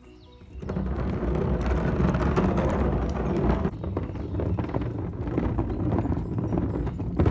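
Rumbling wind and handling noise on a phone microphone carried while walking outdoors, starting about half a second in.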